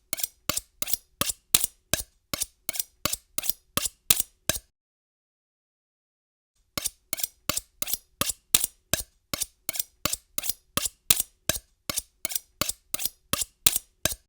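Kitchen knife being sharpened: short, even strokes of the blade, about three a second, with a pause of about two seconds a third of the way through.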